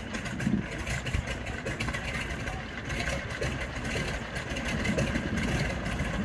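Ford Tri-Motor's radial aircraft engines running, with a rapid, steady firing clatter that grows slightly louder.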